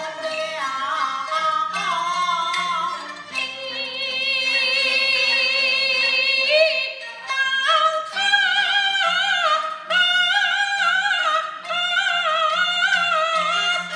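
Peking opera: singing with instrumental accompaniment. A long, wavering held note comes about a third of the way in, followed by a stepping, ornamented melodic line.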